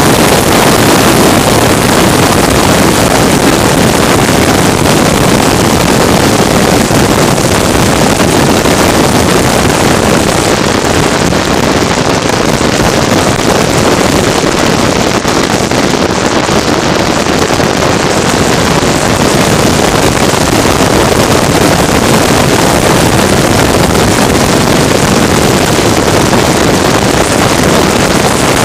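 Loud, steady running of a racing vehicle's engine blended with wind rushing over the microphone, near full volume, with no rise or fall in pitch.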